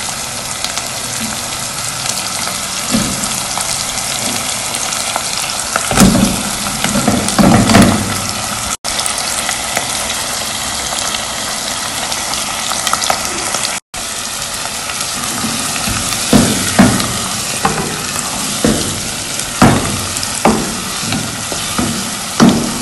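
Raw chicken pieces sizzling in hot oil with chopped onions in a pot, as a spoon stirs them and knocks against the pot. The knocks come in a cluster about six to eight seconds in and again, more often, through the last seven seconds. The sound drops out briefly twice.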